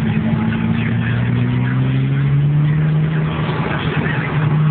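Ferrari 550 Maranello's V12 engine running at speed through a stainless-steel aftermarket exhaust, heard from on board. The engine note climbs gently about two seconds in, then holds steady.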